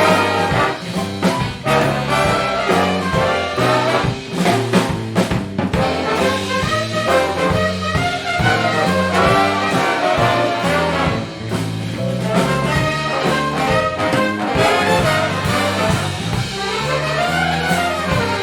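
Big band playing an instrumental swing passage, with trumpets and trombones over a stepping bass line and a few sharp full-band accents.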